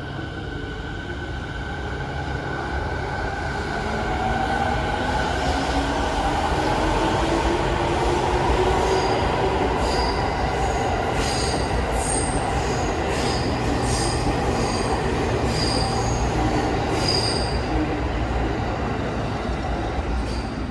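JR 209 series 500 electric commuter train pulling away. Its motor whine rises in pitch over the first several seconds as it gathers speed. After that, repeated clicks of the wheels over rail joints come with high-pitched wheel squeals.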